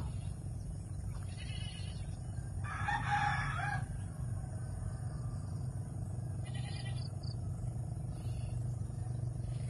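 A rooster crowing once, a drawn-out call of a little over a second about three seconds in, over a steady low rumble.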